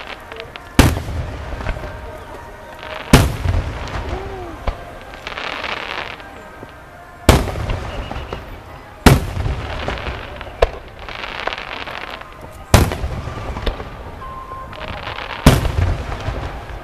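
Aerial firework shells bursting overhead: about six loud booms spaced two to four seconds apart, each trailing off in a short rumble, with a softer hiss between the bursts.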